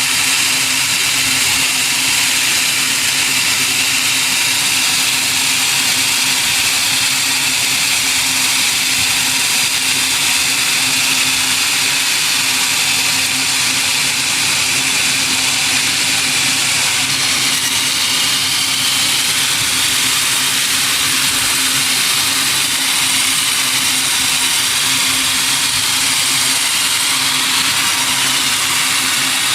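Sawmill machinery running steadily: a continuous loud, hissing whir with a steady low hum underneath.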